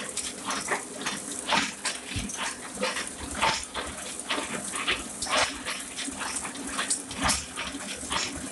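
Ryobi 3200CD offset press running: a steady hum under a string of short hissing puffs, roughly two a second, as the press feeds sheets.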